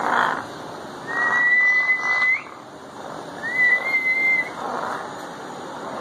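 African grey parrot whistling: two long, level, high whistles, the first ending in a quick upward flick, with rough noisy sounds between them.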